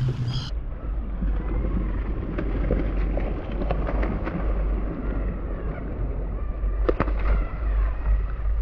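Wind rumbling on the microphone over choppy open water, with a few sharp pops and faint calls from the seabirds wheeling over the feeding fish.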